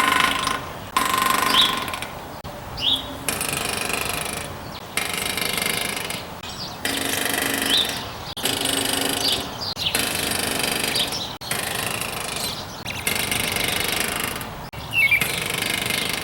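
Northern flicker drumming its bill on a metal roof vent: rapid machine-gun rolls, each about a second long, repeated about ten times with short pauses, with a few brief high chirps between rolls. The drumming is a signal meant to attract a mate, as the owner takes it.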